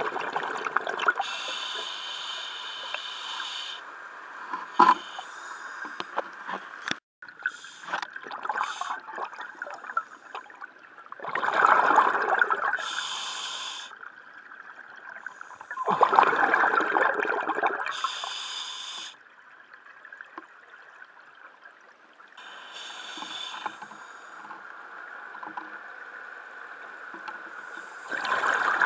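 Scuba diver breathing through a regulator underwater: hissing inhalations alternating with loud gurgling bursts of exhaled bubbles, one breath every several seconds. A couple of sharp knocks sound about five and seven seconds in.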